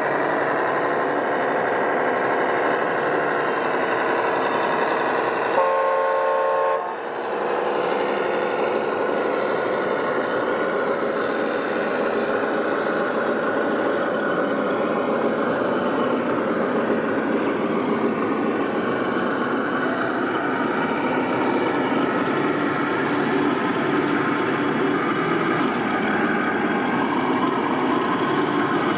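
RC construction machine's engine sound running steadily, its pitch shifting slightly. A horn sounds once for about a second, about six seconds in.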